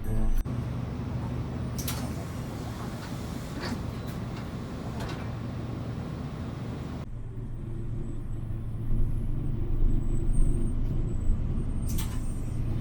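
Bus running, heard from inside the cabin: a steady low engine hum with road noise and a few short clicks and rattles. The higher road noise drops away about seven seconds in, leaving mostly the engine hum.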